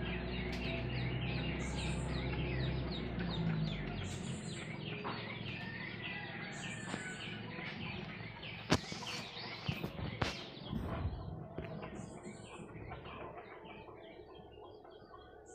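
Many birds chirping and calling in the trees, with a short high call repeating every second or two. A low steady hum runs under it for the first four seconds and then stops, and two sharp knocks come around the middle.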